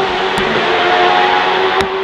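Hillclimb racing car engine running hard at high revs with a steady, held note. Two sharp cracks cut through it, about half a second in and again near the end.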